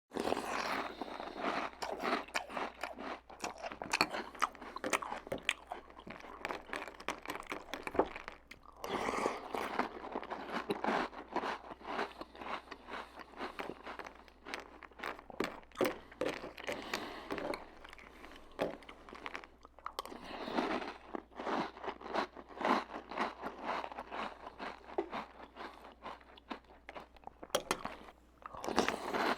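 Close-up crunchy cereal being chewed: a steady run of irregular crisp crunches, with brief pauses about eight seconds in, around twenty seconds and near the end.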